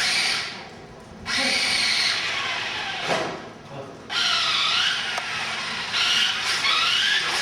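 Toy remote-control car's small electric motor and gears whining in bursts as the throttle is worked, the pitch rising and falling with the speed. It runs briefly at the start, again from about one to three seconds in, and steadily from about four seconds in.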